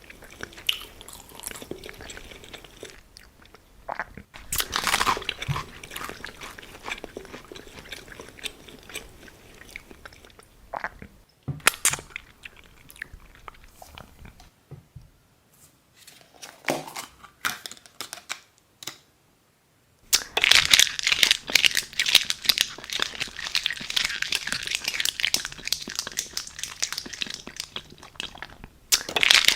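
Close-miked eating sounds: scattered crunchy bites and chewing with short pauses. About two-thirds of the way through, a long run of dense, loud crinkling and crumpling starts.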